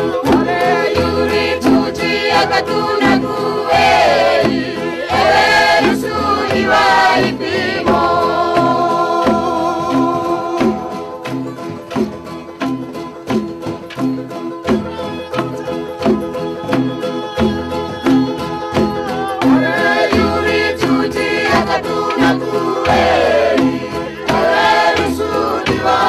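Music with a steady beat and bass line, with singing voices coming in and out over it.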